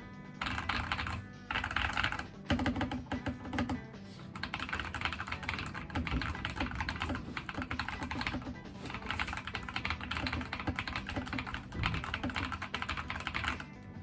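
Mechanical keyboard with Fekker Holy Panda tactile switches being typed on in quick runs of keystrokes, broken by short pauses, with background music underneath.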